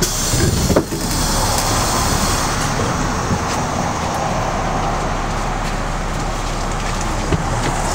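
LiAZ-5256.13 city bus heard from inside the cabin while moving at speed: a steady run of engine and road noise. A couple of brief knocks come within the first second.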